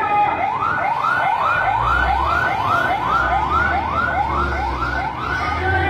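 Emergency-vehicle siren in a fast yelp, its pitch sweeping up and back down about two and a half times a second, with a low rumble underneath from about two seconds in.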